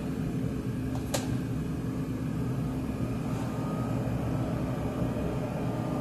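Uber Chill UB-CH1 thermoelectric mini fridge just switched on, its cooling fan running with a steady hum, described as a little bit of a fan sound. A single click comes about a second in.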